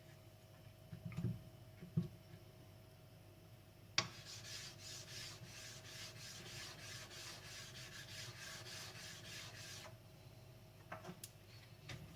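Blue carbon steel knife blade being pushed back and forth across a wet whetstone, a rapid run of gritty scraping strokes at about four a second lasting around six seconds. A couple of soft knocks come before the strokes start, and a few clicks after they stop.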